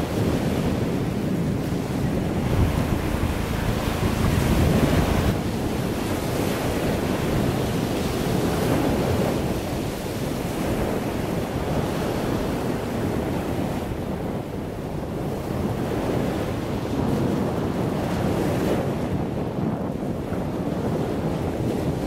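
Wind buffeting the microphone over the steady rush of sea waves, with no pitched sound.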